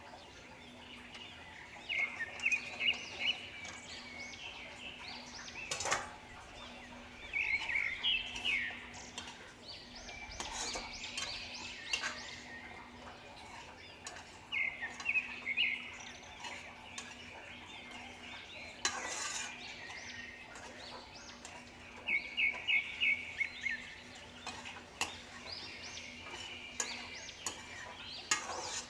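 Metal perforated spatula scraping and clattering in a kadhai as diced potatoes are stirred and fried. Every few seconds there is a short burst of rapid, high chirps, four times in all.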